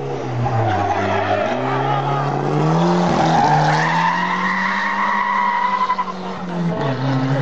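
Race car engine under hard acceleration, its pitch climbing over the first few seconds and then held high, with tyres squealing in the middle. The engine note drops near the end.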